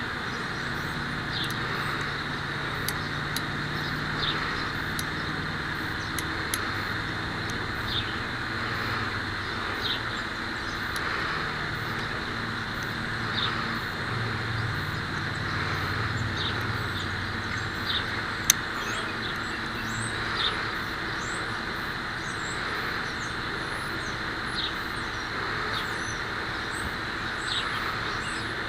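Steady outdoor background noise with a low hum and short bird chirps every second or two, broken once by a single sharp crack about eighteen seconds in.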